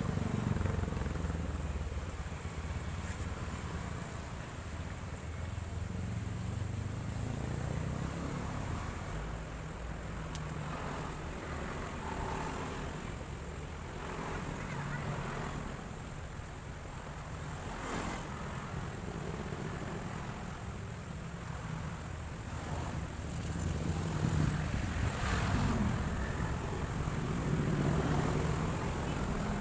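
Road traffic passing close by: a steady low rumble of engines and tyres that swells and fades as vehicles go past, louder again near the end.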